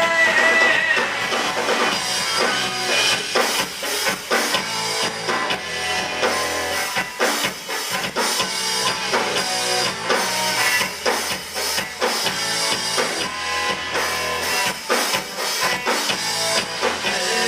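Rock band playing an instrumental passage with no vocals: a drum kit keeping a steady beat under guitar.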